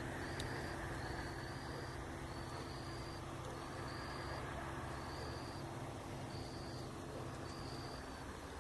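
Night ambience: an insect chirping in an even rhythm, about one short high chirp a second, over a low steady hum that drops away near the end, with a single crackle from the campfire just under half a second in.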